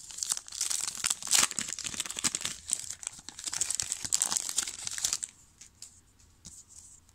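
Foil wrapper of a 2020 Topps Big League baseball card pack being torn open and crinkled by hand. The dense crackle stops about five seconds in, leaving only a few faint taps.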